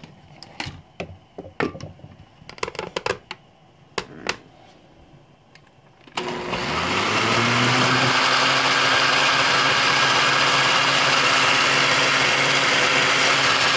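A few scattered clicks and knocks, then about six seconds in an Oster countertop blender is switched on: its motor spins up with a rising hum over a second or two and then runs steadily and loudly, blending coffee and cream. Its owner says it doesn't sound so good.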